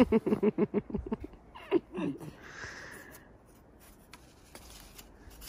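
Short muffled vocal sounds for the first two seconds or so, then a machete blade scraping into packed snow with a brief hiss, followed by a few faint clicks.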